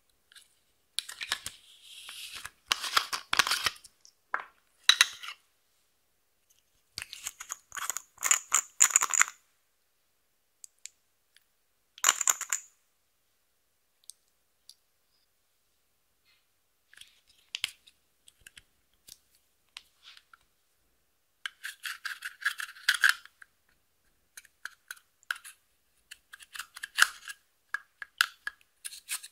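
Makeup containers handled over clear slime in a glass dish: clicking and rattling as a bottle is opened and handled, and scraping as crumbled pressed eyeshadow is dug out of its palette with a small tool near the end. The sounds come in short crisp bursts separated by silent gaps.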